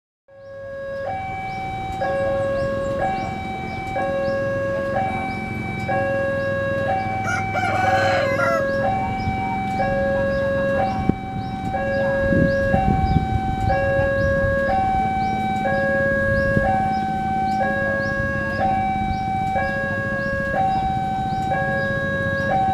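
Railway level-crossing warning alarm sounding: an electronic two-tone signal switching between a low and a high pitch about every three-quarters of a second, over a low rumble. A rooster crows briefly about eight seconds in.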